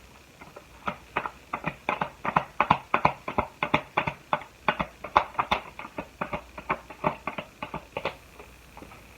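Tarot cards being handled: a quick run of light, sharp clicks and slaps, about four or five a second, stopping shortly before the end.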